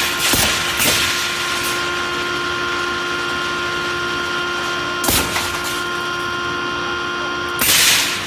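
Pneumatic steel-mesh welding machine running: a steady electrical and mechanical hum, broken by short noisy bursts about half a second in, near a second in, about five seconds in and again near the end.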